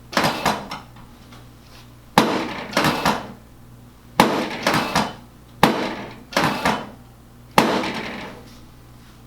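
Five sharp knocking clacks with quick follow-up knocks, spaced about two seconds apart, from a chiropractic adjustment of the sacrum and left SI joint.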